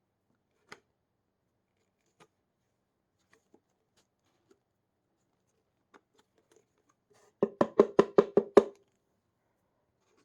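Dirty filter of a Hoover NanoLite stick vacuum being knocked against a hard surface to shake the dirt out: a few faint clicks, then a quick run of about eight sharp taps, some six a second, about two-thirds of the way in.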